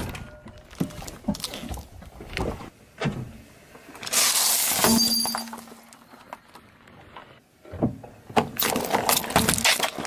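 A car tyre rolling over and crushing objects on asphalt, with sharp cracks and crunches. About four seconds in comes a loud shattering crash with a brief ring, fitting a plate of candy-coated sweets breaking under the wheel. A dense run of crackling and crunching follows near the end as the tyre flattens plastic cups of jelly.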